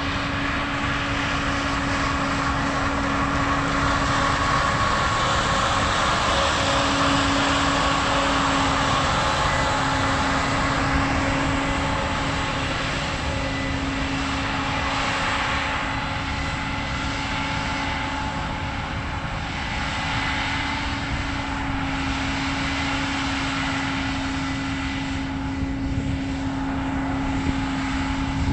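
A large engine running steadily, with a constant low hum over a wide rushing noise, typical of harvest machinery under load. The loudness swells a little in the first few seconds and then eases.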